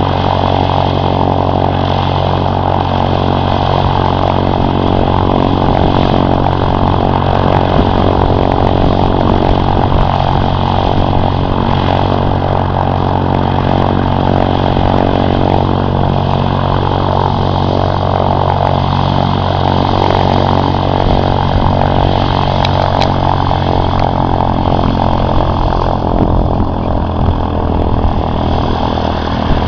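Cessna 152's four-cylinder Lycoming O-235 engine and propeller running at a steady speed, loud and even throughout.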